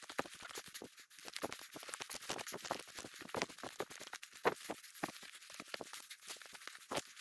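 Footsteps crunching on a rough surface: a quick, irregular run of crackling clicks.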